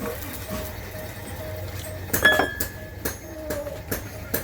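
Hammer blows on metal: a loud ringing clang about halfway through, then lighter strikes roughly twice a second, as the steel stock is worked straight.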